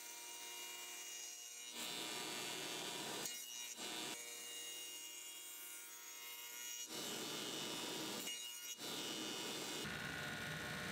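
A power tool running with a faint steady whine, cutting a rabbet along the edges of a pine panel: about four passes of wood-cutting noise, with short breaks between.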